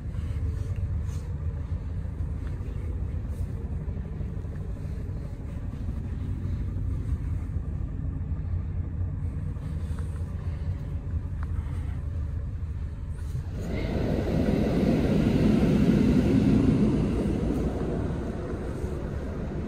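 Steady low cabin rumble inside a Scania K440IB double-decker coach. About thirteen seconds in, a louder rushing noise swells, peaks and fades away over about five seconds.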